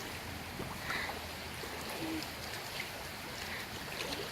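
Clear stream water running over rocks, a steady rushing with a few small splashes.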